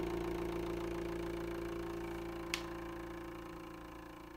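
Homemade glass-bead thermoacoustic engine running, giving a steady hum with one strong tone and fainter overtones, slowly getting quieter. One short click about two and a half seconds in.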